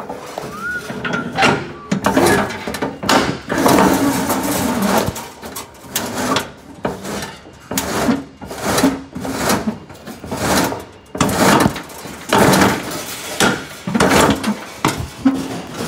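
Handling noise from work on ceiling hanger wires on a lift: a long, irregular run of knocks, rattles and short scraping sounds.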